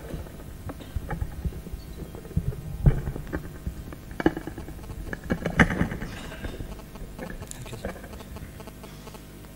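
Handheld microphone being handled and adjusted on its stand, sending irregular clicks, knocks and rubbing thumps through the sound system, the loudest about three, four and five and a half seconds in.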